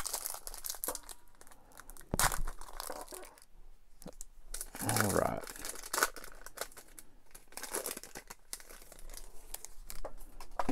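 Foil wrapper of a trading card pack being torn open and crinkled by hand, in several separate bursts of crackling rustle.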